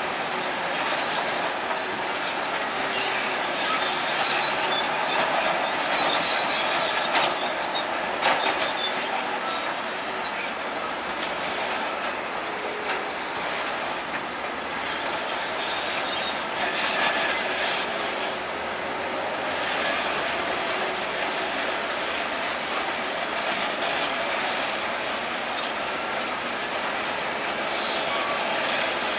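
Bulldozer at work: diesel engine running steadily with its steel tracks clanking and squealing, and a couple of sharp knocks around seven and eight seconds in.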